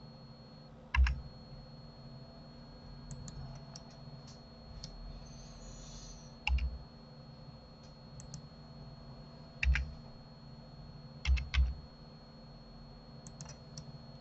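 Computer keyboard keys and mouse buttons being clicked: several sharp clicks with a dull knock, two in quick succession near the end, and lighter clicks in between, over a faint steady hum.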